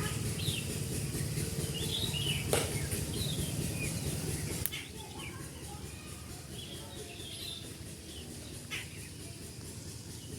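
Small birds chirping, short high chirps scattered throughout, over a low background rumble that drops away about halfway through. A few sharp clicks stand out.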